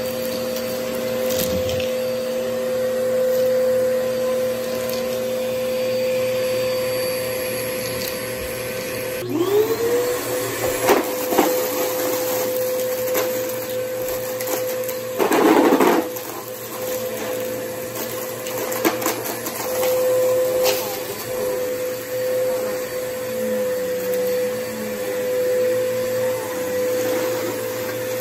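Upright vacuum cleaner running steadily as it sucks up shredded paper and confetti from a shaggy rug. About nine seconds in, its motor note dips and climbs back up, and a little past the middle there is a brief louder rush.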